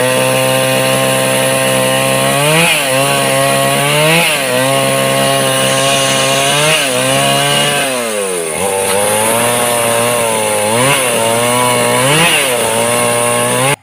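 Chainsaw engine running at high revs while ripping a log lengthwise into slabs, its pitch repeatedly sagging as the chain bogs in the cut and climbing back, with one deep dip about eight seconds in.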